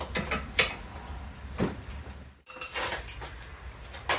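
Metal fittings and hand tools clinking and knocking at a bench vise as a threaded air-line fitting is set in the vise: a run of short, sharp clinks at irregular intervals.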